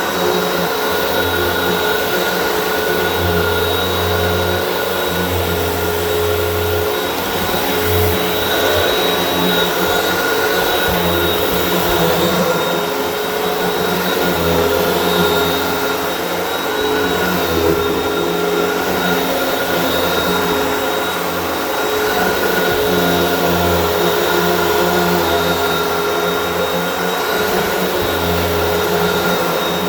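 Hoover WindTunnel upright vacuum cleaner running on carpet: a steady motor whine with a low hum that comes and goes.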